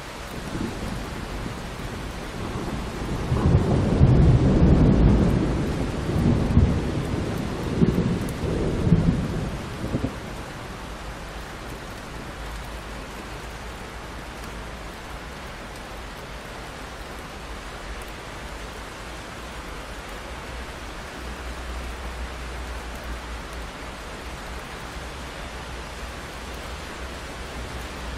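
Steady rain with a roll of thunder that swells in about three seconds in, peaks several times and dies away after about seven seconds, leaving the steady rain alone.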